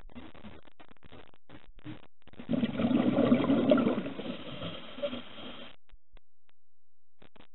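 A scuba diver's exhaled breath bubbling out of the regulator underwater: one burst of bubbling that lasts about three seconds, starting a couple of seconds in.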